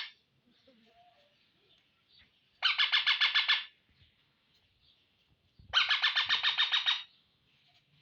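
Indian ringneck parrot (rose-ringed parakeet) screeching in two short bursts, each a rapid run of repeated shrill notes at about ten a second. The first comes about three seconds in and the second near the end.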